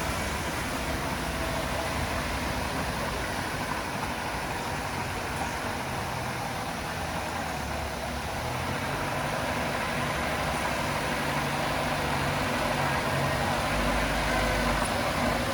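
Diesel engine of heavy earthmoving equipment running steadily, growing a little louder and deeper in the last few seconds.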